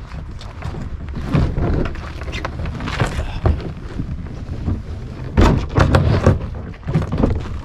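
Irregular knocks, bumps and rubbing of a kayak being handled and shifted by its cockpit rim, over a low rumble. The loudest knocks come a little past halfway.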